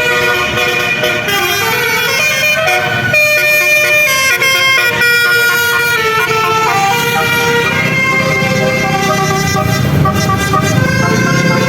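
Telolet basuri musical air horn on a bus playing a tune: a run of horn notes that step up and down in pitch, several sounding together.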